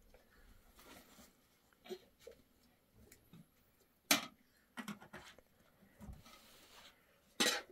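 Faint, scattered clinks and taps of a metal spoon against a metal pot and plate while rice is served, with a sharper clink about four seconds in.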